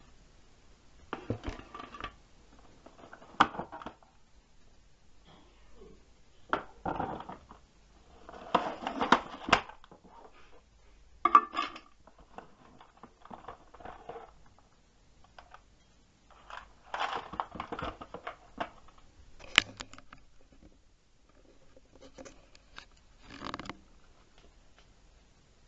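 Hard plastic sewing-machine accessories, including the detachable extension table, being handled and fitted into the machine's carrying case: on-and-off clatter and rustling with several sharp knocks.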